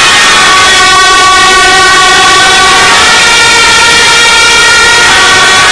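Suona (Chinese shawm) playing loud, held notes in Taiwanese temple music, stepping to a new note about a second in and again around three seconds.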